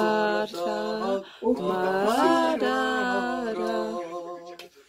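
A person singing a Mongolian song unaccompanied, in slow, long-held notes with gliding pitch: two drawn-out phrases with a short break about a second in.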